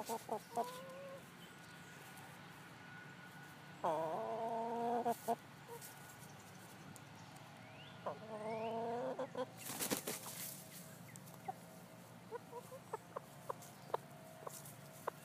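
Chickens clucking, with two drawn-out calls of about a second each, about four and eight seconds in. A brief noisy burst comes near the ten-second mark.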